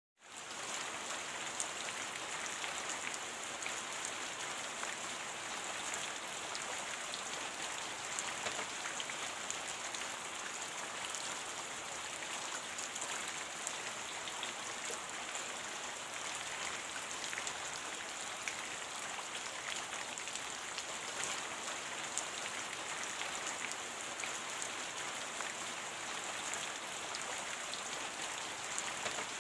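Steady rain falling: an even hiss dotted with the ticks of single drops, fading in over the first half second.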